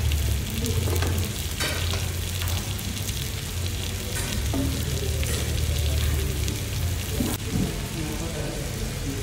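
Marinated meat and butter sizzling on a hot tabletop grill pan, a steady hiss. Metal tongs clack against the pan a few times as the meat is turned. A low steady hum runs underneath.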